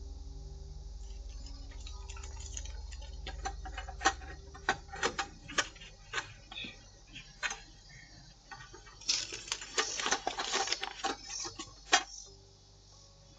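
A series of irregular sharp clicks and knocks that begin a few seconds in and bunch densely for a few seconds near the end, over a low hum that fades out early.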